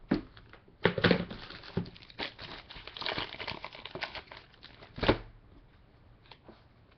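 A trading card being slid into a rigid plastic toploader: plastic sleeve and holder crinkling and clicking, with a sharp knock about five seconds in.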